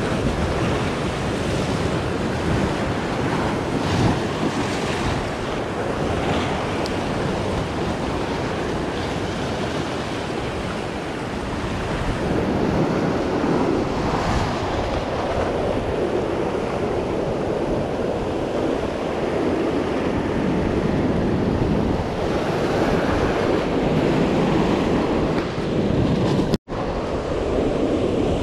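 Surf breaking and washing over a rocky shoreline, a continuous rushing that swells and ebbs with each wave. The sound drops out for an instant near the end.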